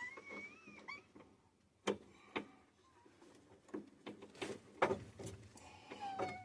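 A high whining cry that glides and fades out within the first second, then a handful of sharp, irregularly spaced clicks and knocks.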